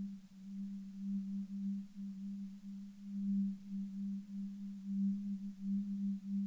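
A low, pure electronic drone held at one unchanging pitch, its loudness swelling and dipping irregularly every half second or so.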